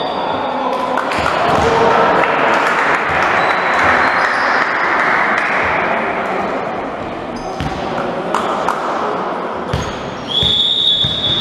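Voices in a sports hall cheering and shouting after a volleyball point, then a few sharp knocks of a volleyball bounced on the wooden floor. Near the end comes one long blast of a referee's whistle for the serve.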